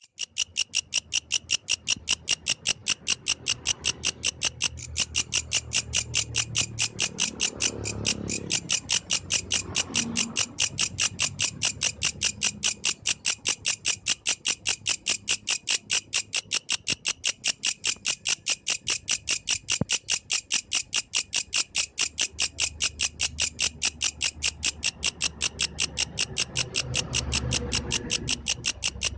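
Yellow grasshopper singing: a steady, rapid train of high, buzzy pulses, about five a second, that keeps up without a break.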